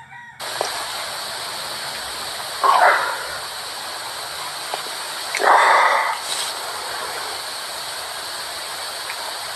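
Steady hiss with two short, breathy, groan-like vocal sounds, one about three seconds in and one about six seconds in.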